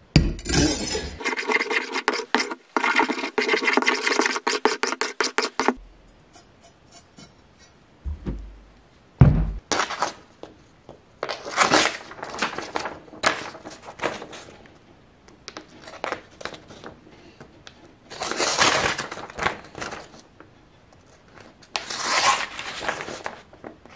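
Steel kitchen knife edge scraped rapidly back and forth along a brick to blunt it, a fast rasping run of strokes that stops after about six seconds. A single thump follows, then a sheet of paper crinkling and rustling in bursts as the dulled blade is pushed against it without cutting through.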